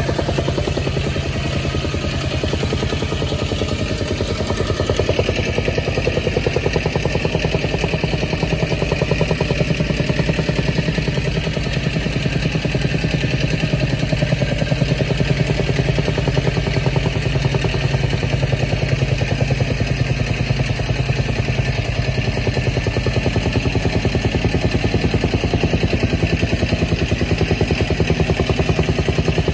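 An engine running steadily at idle with a fast, even pulse.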